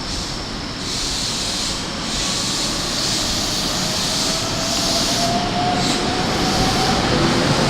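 Keikyu 1500-series electric train pulling out of the station, its traction motors giving a slowly rising whine as it gathers speed over the steady rumble of the wheels.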